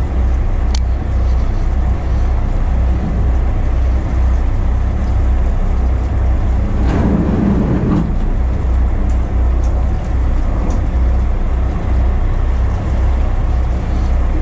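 Fishing boat's engine running as a steady low rumble, with a brief louder rushing swell about seven seconds in.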